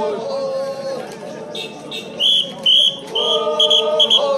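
Group of Naga men chanting, several voices holding long drawn-out notes together at different pitches. From about two seconds in, loud shrill high-pitched blasts cut in again and again in short bursts over the chant.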